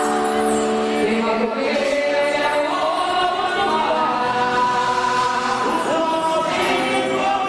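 Music with many voices singing together, holding long notes.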